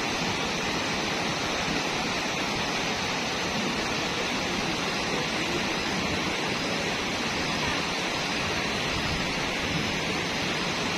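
Fast-flowing floodwater rushing steadily, an unbroken even hiss.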